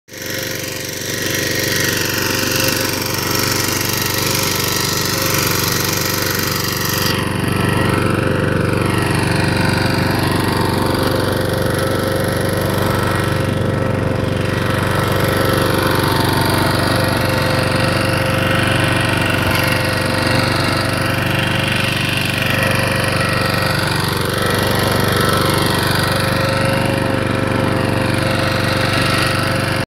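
Walk-behind power tiller's engine running steadily under load while its rotary tiller works the soil, a continuous rapid chugging.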